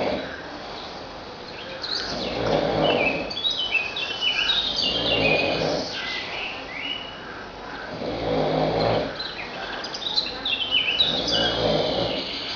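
A man snoring heavily, with a rasping snore about every three seconds. Birds chirp over it.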